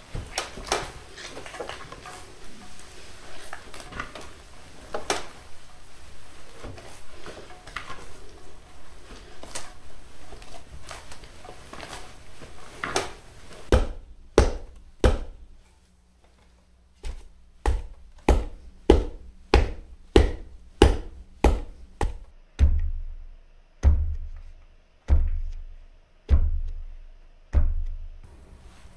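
Hands kneading glutinous rice flour and blanched mugwort in a wooden bowl, with soft rustles and pats. About halfway a wooden pestle starts pounding the mugwort rice dough in a stone mortar: a few strikes, a short pause, then about two strikes a second. Near the end the strikes slow to about one every second and a bit, each a heavy, deep thud.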